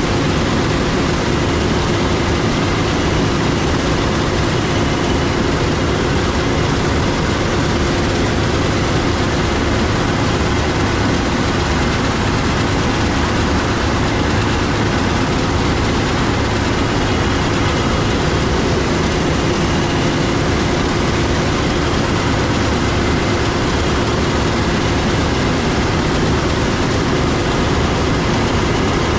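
Heavy diesel harvest machinery running steadily at constant load, a loud even drone with one held tone and no change in pitch.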